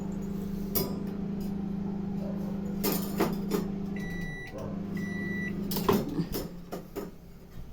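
LG microwave oven running with a steady low hum, then two short high beeps about four and five seconds in as the cooking cycle ends. A sharp clack, the loudest sound, and a few knocks follow as the hum falls away.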